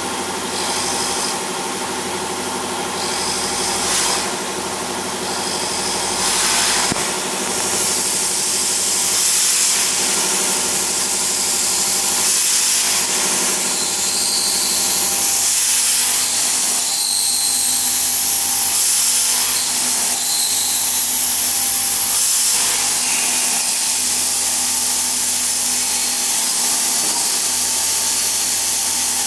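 CNC glass slotting and milling machine running, its spindle cutting into glass with a steady whine over a hiss. It gets louder about eight seconds in and then holds steady.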